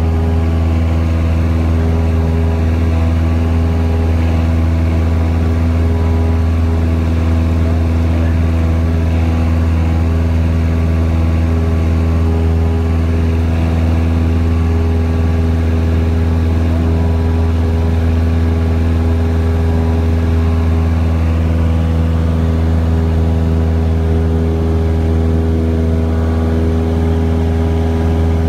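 Single-engine Cessna's piston engine and propeller droning, heard inside the cabin in flight. The drone stays steady in pitch and level throughout.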